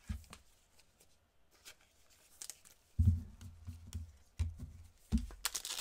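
Soft thumps and light clicks of hands handling trading cards and packs on a tabletop, with a few dull knocks about three seconds in and again later. Near the end a foil card pack starts crinkling as it is picked up.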